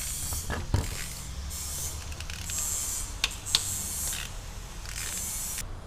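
Ratchet wrench working a connecting-rod cap bolt loose on a Toyota 2AZ-FE engine, clicking through about six short back-and-forth strokes, with a few sharp metal clicks between them.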